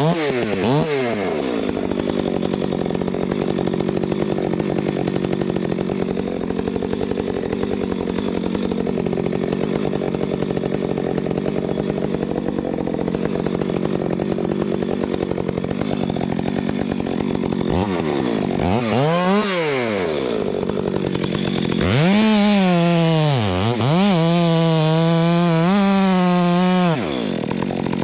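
Chainsaw idling, revved up and back down briefly twice, then held at high throttle for about five seconds near the end before dropping back to idle.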